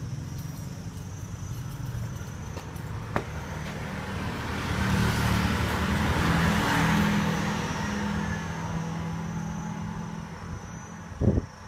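A motor vehicle's engine passing by, growing louder to a peak about halfway through and then fading. A sharp click comes about three seconds in and a short knock near the end.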